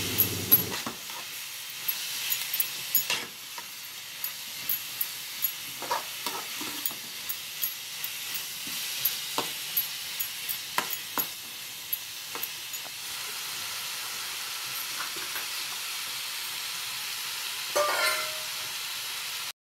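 Prawn heads sizzling in a metal pan with a steady hiss as the water from the prawns cooks off, a perforated steel spatula scraping and tapping against the pan in frequent sharp clicks. The clicks thin out after about 13 seconds, leaving mostly sizzle, with one short scrape near the end.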